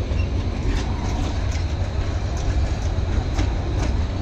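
Passenger train coaches rolling past on the track: a steady low rumble, with the wheels clacking over the rail joints again and again, often in quick pairs.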